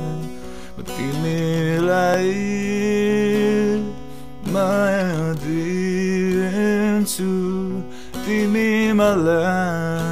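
Nepali song: a singer's voice in three sung phrases over strummed acoustic guitar.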